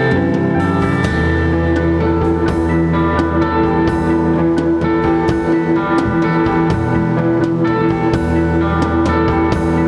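Instrumental rock band playing: electric guitars holding ringing notes over a drum kit with regular drum and cymbal hits.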